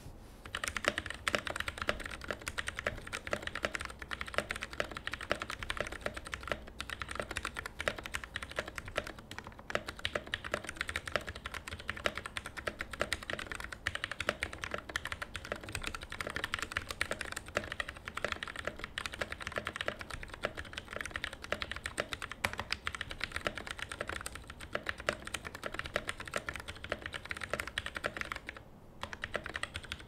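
Continuous typing on a Keychron K6 mechanical keyboard with lubed Gateron Brown switches, lubed stock stabilizers and foam added inside its plastic case: a steady stream of key clicks and bottom-out taps, with a short pause near the end.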